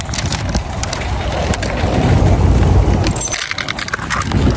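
Loaded wire shopping cart rolling over asphalt: a steady low rumble from the wheels, with many small rattles and clicks from the basket and its contents.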